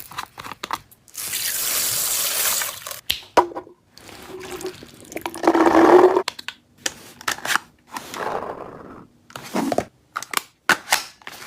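Handling of a plastic toy gel blaster: scattered sharp clicks and snaps of parts, with a long hissing stretch at about one to three seconds in, a louder rustling burst around five to six seconds in, and a shorter one near eight seconds.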